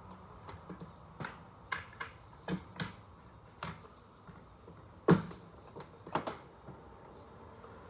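Irregular light clicks and knocks of hands and parts at work on a fridge door handle, about a dozen in all, the loudest a sharp knock about five seconds in.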